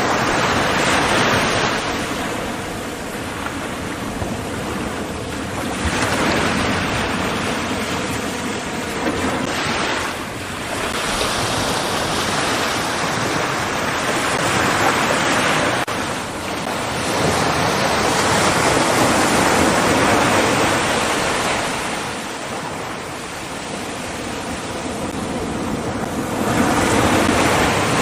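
Ocean surf: waves breaking and washing up the shore in slow surges that swell and fade every few seconds.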